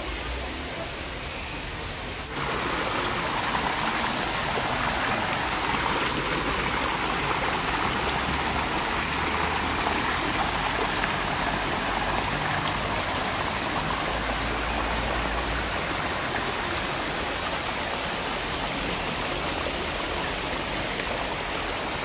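Waterfall water running steadily, a constant rushing hiss that gets louder about two seconds in.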